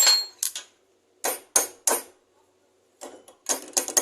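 Sharp metal clanks and taps from tools working a bearing puller on a washing-machine motor's shaft: one strike at the start, another half a second later, three spaced clanks in the middle, then a quick run of them near the end.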